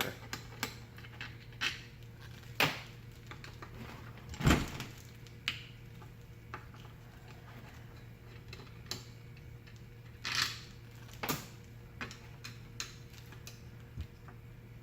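Scattered metal clicks and knocks of a screwdriver working out the motor screws of a ring fan motor, with one louder knock about four and a half seconds in.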